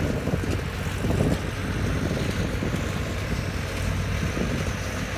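Tractor engine running steadily, with wind blowing across the microphone.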